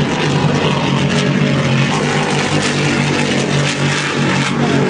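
Racing powerboat's engines running at speed, a steady drone with rushing water and spray noise.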